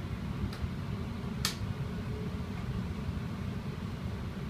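Steady low running rumble inside a Queensland Rail SMU electric suburban train carriage in motion, with a faint click about half a second in and a sharp click about a second and a half in.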